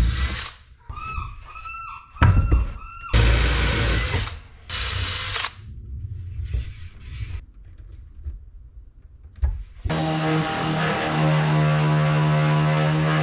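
Cordless drill driving screws into the corners of a wooden door frame in several short whirring bursts during the first six seconds. About ten seconds in, a steady run of background music begins, with a random orbital sander running under it.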